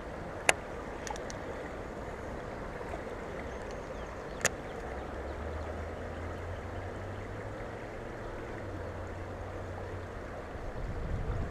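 Steady rush of a rain-swollen river flowing past the bank, with two sharp clicks about half a second and four and a half seconds in and a low hum through the middle.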